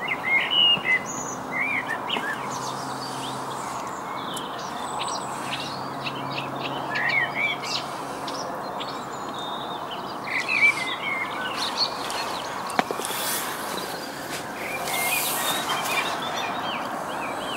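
Songbirds singing, many short chirping and warbling notes, over a steady background hiss.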